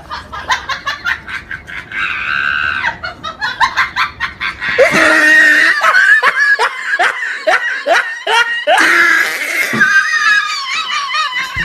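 People laughing hard and screaming: quick strings of laugh pulses, then loud high-pitched screaming mixed with laughter for most of the second half.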